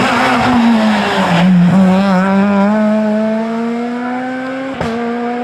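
Rally car engine working hard through a corner. The pitch sags for about a second, then climbs steadily under full throttle, with a quick upshift near the end.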